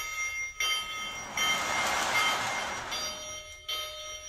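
Toy Union Pacific steam locomotive running on its track, its sound system ringing a bell, with a louder hissing rush about halfway through.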